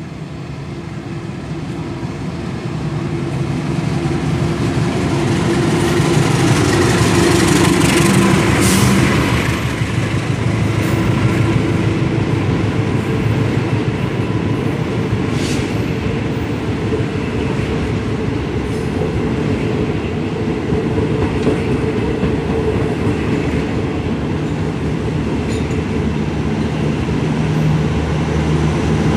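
Diesel-hauled long-distance passenger train passing close along a platform: the locomotive's diesel engine hum grows louder over the first several seconds as it draws near, then the coaches roll past steadily, their wheels rumbling on the rails.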